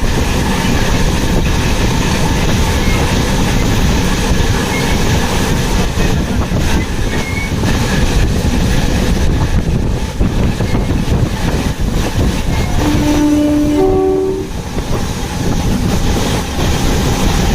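Train running on the rails: a steady rumble with rail clatter. A short, steady horn tone sounds a little after two-thirds of the way through.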